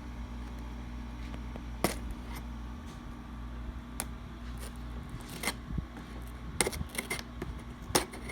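A cardboard toy box being worked open by hand: several sharp clicks and snaps, with softer scraping of cardboard between them, over a steady low hum.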